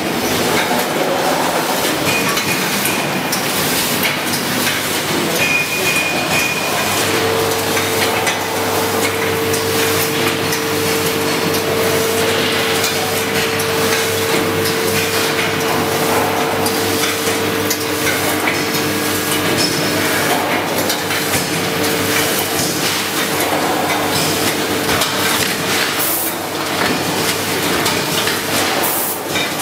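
Vertical form-fill-seal packaging machines running on a factory floor: continuous mechanical clattering and knocking. A steady hum comes in about seven seconds in, and a second, lower one joins it about ten seconds later.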